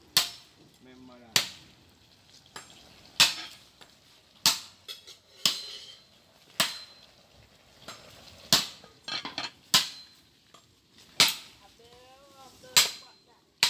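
A run of sharp knocks or blows, about ten in all, coming roughly every second or so at an uneven pace.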